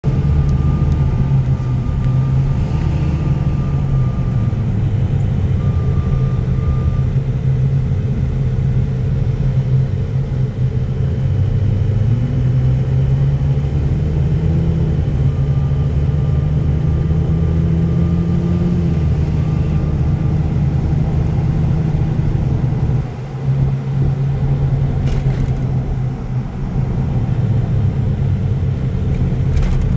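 2002 Ford F-250 pickup on the move: a steady low drivetrain rumble whose pitch drifts slowly up and down, with a thin high whine that comes and goes. The owner thinks the noise comes from the differential; it appears after about 20 minutes of highway driving.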